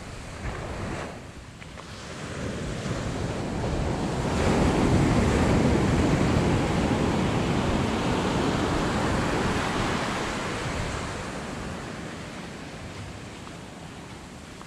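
Ocean surf breaking and washing up a sandy beach: the rush of a wave swells up about four seconds in, then slowly fades over the following seconds.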